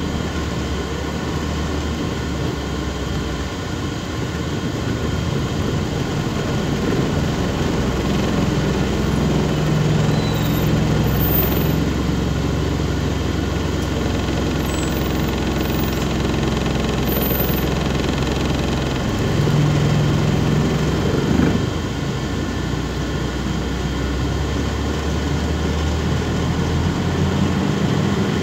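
MAZ-206 city bus heard from inside the passenger cabin while driving: a steady low engine hum with road noise, the engine note rising and changing twice along the way.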